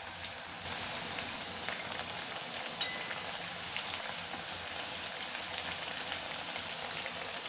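Urad dal pepper vadas deep-frying in hot oil: a steady sizzle with fine crackling as the oil bubbles hard around them while they are still cooking through. One sharp click about three seconds in.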